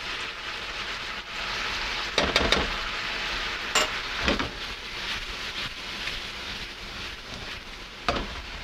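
Chicken livers sizzling in a bubbling sherry glaze in a nonstick frying pan, a steady hiss, with a few short knocks as the pan's contents are tossed.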